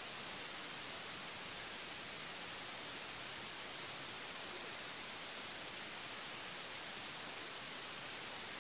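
Steady, even static hiss from the recording, brighter in the treble, with no other sound standing out.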